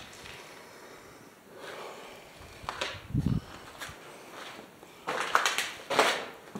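Footsteps walking, with a low thump about three seconds in and louder scuffing steps near the end.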